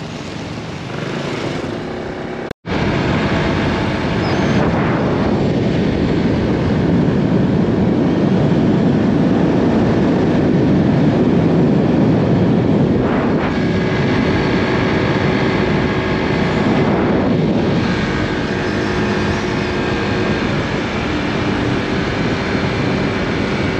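Honda Click 160 scooter under way at a steady speed: a steady engine drone under heavy wind and road noise. The sound cuts out for an instant about two and a half seconds in and comes back louder.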